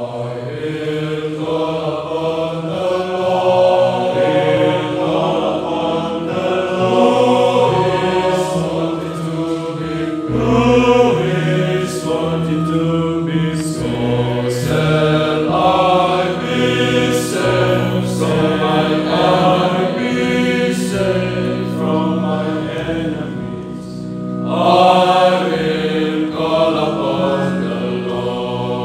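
Male choir of friars singing a sacred song together, several voices held on long, blended notes. It softens briefly near the end, then swells louder again.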